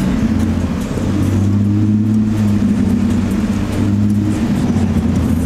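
Car engine drone heard from inside the cabin while the car creeps along at low speed. The note steps up slightly about two seconds in and settles back about two seconds later.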